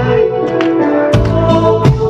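Instrumental introduction of a song's accompaniment, with sustained pitched notes over a steady beat of about one stroke every 0.7 seconds.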